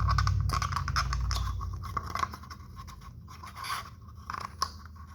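Scratching and rustling with small clicks from a new cartridge oil filter element being handled and fitted into its housing cap, busiest in the first half. A low rumble fades out about two seconds in.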